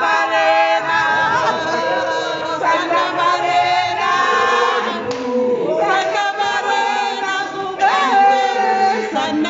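A choir singing in harmony, holding long notes with vibrato, with short breaks between phrases about five and eight seconds in.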